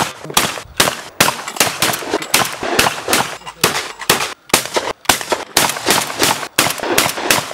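Shotgun shots in rapid succession, about four sharp bangs a second.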